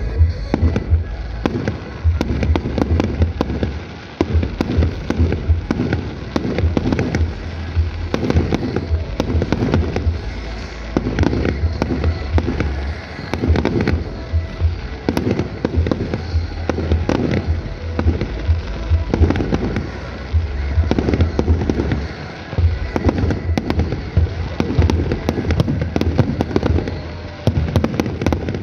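Fireworks display: aerial shells bursting overhead in a rapid, nearly continuous run of bangs.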